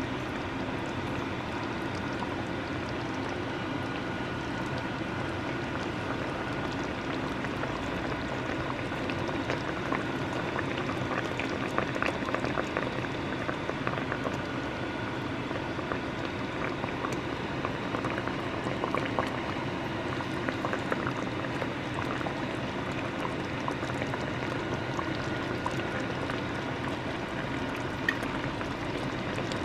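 Braised pork hock (patatim) bubbling in a pan of thick, reduced sauce, a steady simmer with many small pops and crackles.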